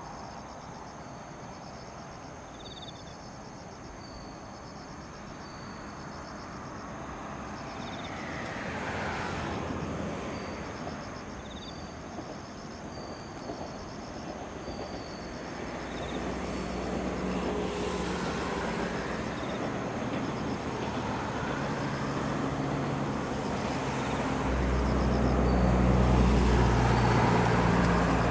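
KiHa 66/67 diesel railcar set approaching, its engine drone rising through the second half and loudest in the last few seconds. Insects chirp in a quick steady rhythm at the start, and there is a swell of passing-traffic noise about eight seconds in.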